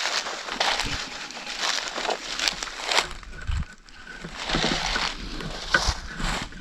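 Footsteps crunching and rustling through deep dry leaf litter, in uneven steps about two a second.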